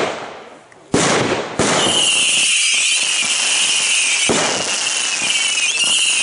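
Ground-fired mascletà firecrackers: a sharp bang about a second in and another just after, then a continuous loud hiss with a high whistle over it, cut by another bang about four seconds in.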